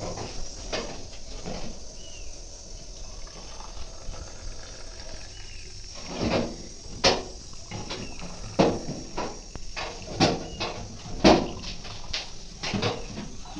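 Milk tea being poured from an aluminium kettle into ceramic mugs, with a run of sharp clinks and knocks from the kettle and mugs, about six of them over the second half.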